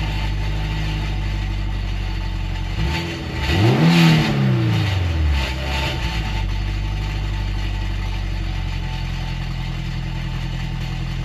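Turbocharged Honda S2000 four-cylinder engine idling through a J2 dual-tip exhaust whose baffle has broken loose inside the muffler, a fault the owner says makes it rattle. About three seconds in it is revved once, rising quickly and dropping back to a steady idle within a couple of seconds.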